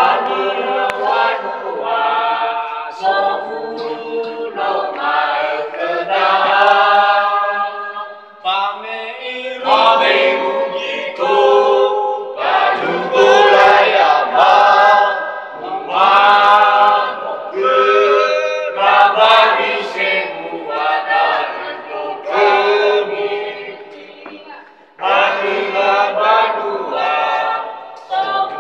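A group of voices singing unaccompanied, in long phrases with short breaks between them.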